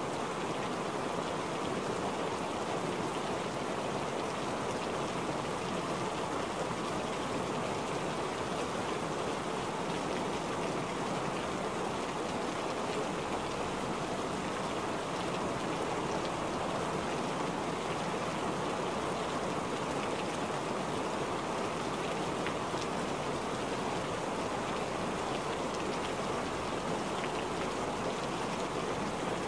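Steady rain falling, a dense even patter of drops splashing on a wet surface, unchanging throughout.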